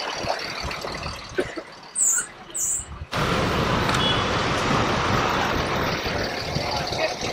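Road traffic and bus engines at a busy highway roadside, with two short high hisses around two seconds in. About three seconds in the sound changes abruptly to a steadier, louder traffic noise.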